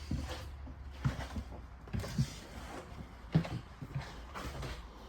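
A run of irregular dull thumps and knocks, some in quick pairs, over a low steady hum.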